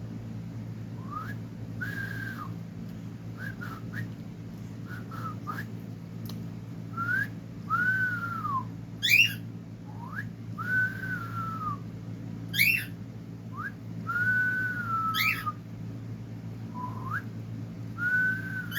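A person whistling a slow tune in clear notes, several of them long and arching, to coax a pet bird into singing. Three short, sharp squeaks sweep steeply upward between the notes, and a steady low hum runs underneath.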